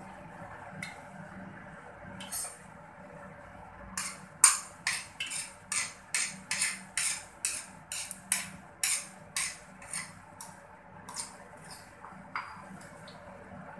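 Hot cooking oil in an aluminium wok crackling and spitting. There is a quick run of sharp pops, about three a second, from about four seconds in to about ten, with a few scattered pops before and after, over a faint steady hum.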